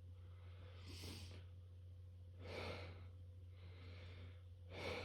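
Faint human breathing: four soft breaths about a second apart, the last one louder, as a sneeze builds.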